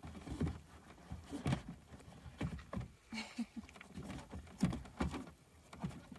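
Handling noise: shoes and an elastic bungee cord with hooks knocking and rustling against the inside panel of a van's back door as the cord is stretched over them. Light, irregular knocks and scuffs.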